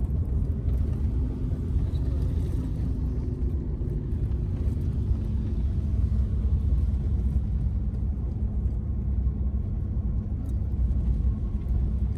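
Four-wheel-drive pickup truck driving on a rough washboard gravel road with ice and slush. A steady low rumble of engine and road noise.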